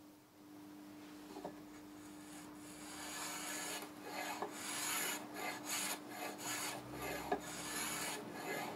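Sandpaper rubbing back and forth along a mahogany guitar neck as the grip is hand-sanded to shape. The strokes start faint and become louder and quicker after a few seconds, at about three a second.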